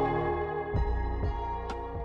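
Background music: soft ambient keyboard notes over a steady low beat, with one sharp click near the end.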